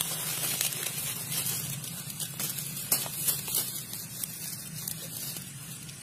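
Dry leaves and stalks crackling and rustling as hands move through the leaf litter, busier at first and thinning out toward the end, over a faint steady low hum.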